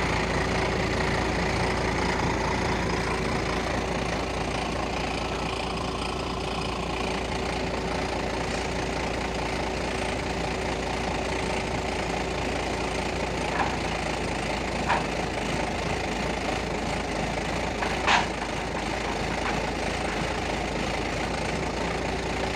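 Mobile crane's diesel engine running steadily with a constant whine. Three sharp knocks come late on, the loudest about three-quarters of the way through.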